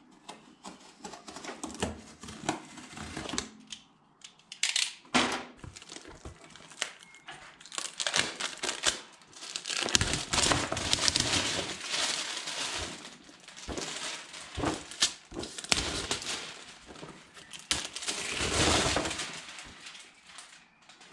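Gasket packaging being cut open and unwrapped by hand, most likely a plastic bag. A few sharp clicks and scrapes come in the first several seconds, then long stretches of crinkling and crackling from about eight seconds in.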